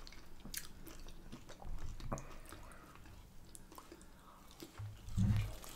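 A person biting and chewing a chip dipped in peppercorn sauce, with small scattered mouth clicks and a short louder moment about five seconds in.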